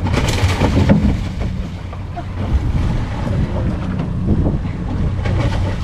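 A boat's engine idling with a steady low hum, under wind buffeting the microphone and waves slapping the hull. A louder rush of noise comes in the first second and again near the end.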